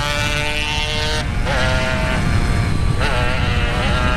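Motorcycle engine running at high revs under way, over a constant low wind rumble. Its pitch holds level for about the first second, then wavers up and down.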